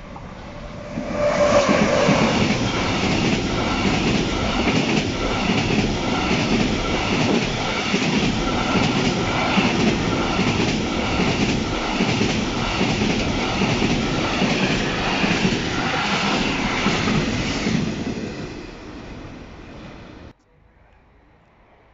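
Intermodal freight train hauled by an electric locomotive passing close by at speed, its container wagons' wheels clacking in a regular rhythm over the rail. The noise swells about a second in, eases off near the end and then cuts off suddenly.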